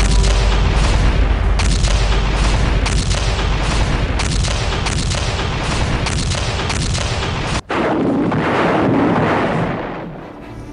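Battle sound track: a heavy engine rumble under gunshots cracking about twice a second, irregularly. After a sudden break near the end, a longer rushing blast swells and then dies away.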